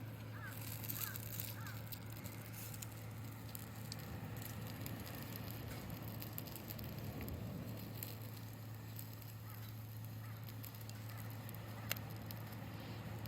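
Wood campfire crackling with scattered small pops and one sharp pop near the end, over a steady low hum. A few short, repeated calls sound in the first second or so and faintly again later.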